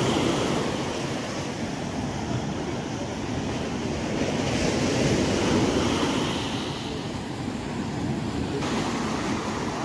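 Sea surf breaking on a sandy beach: a steady wash of waves that swells about halfway through and eases again.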